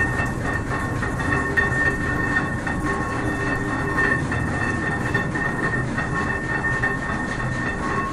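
Working windmill machinery running inside the mill: a steady rumble and rattle from its turning shafts and gearing, with a steady high whine over it.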